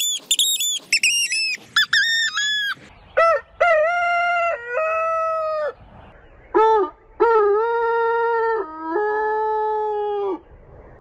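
A rooster's crow played back over and over at falling speeds. It starts as a quick run of short, very high-pitched sped-up crows, then each repeat comes slower, lower and longer, and the last ones are deep and drawn out.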